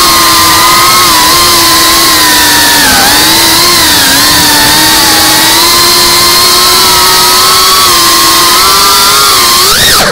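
GEPRC FPV quadcopter's brushless motors and propellers whining steadily, recorded by the onboard camera, the pitch dipping slightly as the throttle changes. Near the end the whine rises sharply, then drops.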